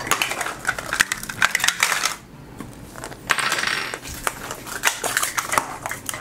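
Small hard plastic pieces clicking and clattering as a plastic capsule ball and miniature toy groceries are handled. A short burst of plastic wrapper crinkling comes about three seconds in.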